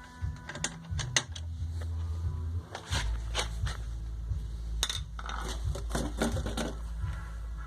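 Irregular sharp clicks and knocks of tools and metal parts being handled during washing-machine transmission and shifter work: a cluster in the first second or so, then scattered clinks through the rest, over a low steady hum.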